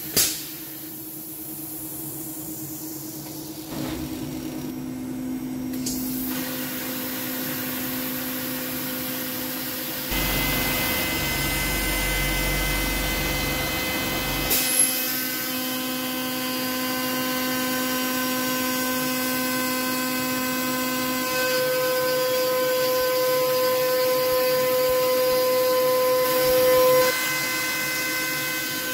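PrintNC CNC router's spindle running with a steady whine while an end mill cuts 6061 aluminium under mist-coolant hiss; the tone of the cut shifts several times. A brief loud burst comes right at the start, and a sharp click about halfway through.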